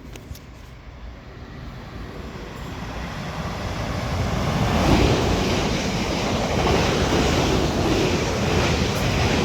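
A South Western Railway express electric train passing through the station at speed without stopping: a rush of wheel and rail noise that builds over the first few seconds and stays loud as the train goes by.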